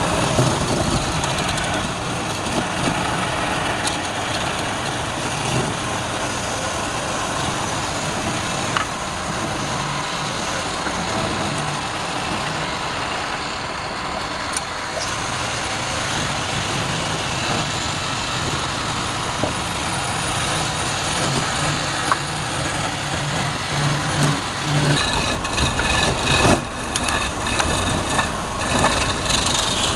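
Wood lathe running with a steady machine noise, growing more uneven near the end.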